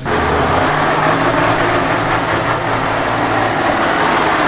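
Off-road vehicle engine running steadily, with a loud rushing noise over it. The sound starts abruptly.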